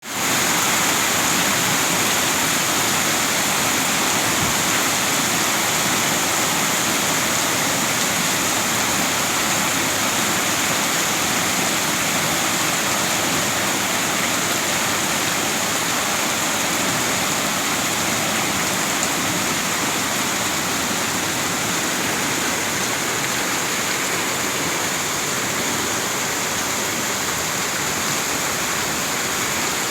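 Floodwater of a river in flash flood rushing steadily and loudly, with no let-up.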